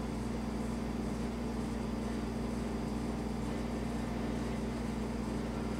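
Steady low background hum with no other sound events.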